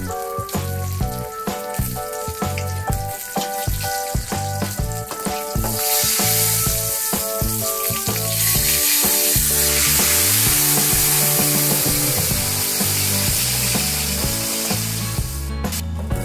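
Whole tilapia deep-frying in oil in a wok, sizzling and crackling, much louder from about six seconds in and stopping abruptly near the end, with background music.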